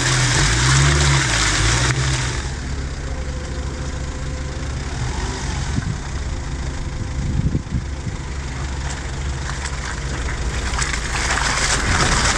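4x4 SUV engines running low and slow as the vehicles crawl down a muddy off-road slope, rising and falling in pitch during the first two seconds. A hiss over the engine sound stops about two seconds in, leaving a steady low drone with a few small knocks.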